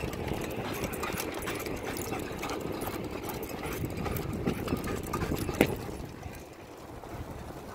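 Beach cruiser bicycle rolling over asphalt with a dog trotting alongside on a leash attachment. Wind buffets the microphone under a steady rumble, with quick rattles and clicks throughout and one sharp clack about five and a half seconds in.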